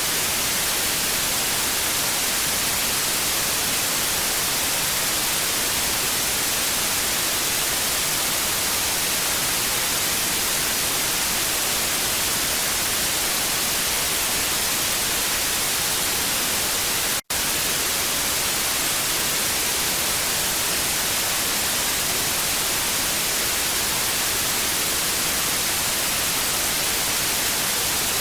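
Steady hiss of TV static, heaviest in the high frequencies. It cuts out for an instant about seventeen seconds in.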